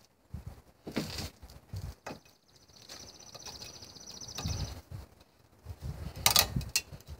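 A compressed-air tool running for a little under three seconds with a fast, even buzz, among scattered knocks of metal parts being handled. A short, loud hiss-like burst comes near the end.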